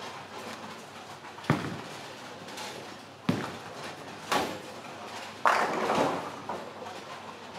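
Ten-pin bowling alley: a few sharp knocks of bowling balls, then about five and a half seconds in a louder clatter of pins being struck that dies away over a second.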